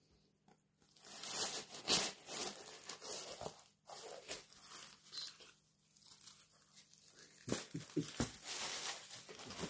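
A new button-up shirt's fabric rustling and swishing as it is handled and moved close to the microphone, starting about a second in, with a few dull bumps near the end.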